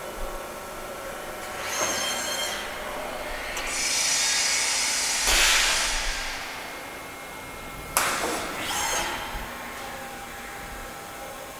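2003 Haas SL-10 CNC lathe running a program: a steady machine hum with faint whining tones, broken by hissing bursts, the longest from about three and a half to seven seconds in. A sharp clack about eight seconds in, followed by another short hiss, as the turret moves to a new position.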